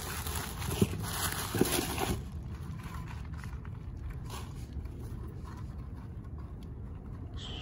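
Bubble-wrap packaging crinkling and rustling as a part is unwrapped by hand, loudest in the first two seconds, then softer rustling of a soft fabric wrap over a low steady rumble.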